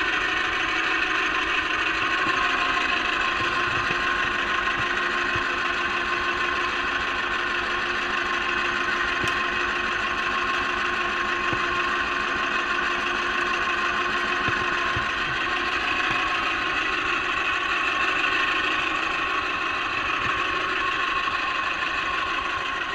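Small fishing boat's motor running steadily at trolling speed: a constant drone with several steady tones.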